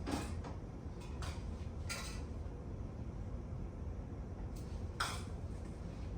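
Nearly empty aerosol can of Maxima chain cleaner sputtering in four short bursts onto a motorcycle chain, over a steady low rumble.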